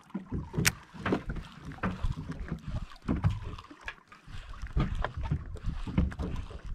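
Sea water slapping against a small boat's hull, over a low wind rumble on the microphone, with irregular sharp knocks.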